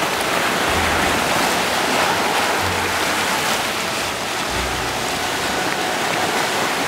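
Steady rushing wash of ocean surf, with low wind rumble on the microphone coming and going.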